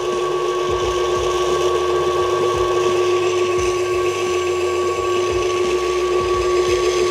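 Electric stand mixer running at a steady speed, its motor giving a constant hum with a whine above it. The wire whisk beats a thick, emulsified Caesar dressing in a stainless steel bowl.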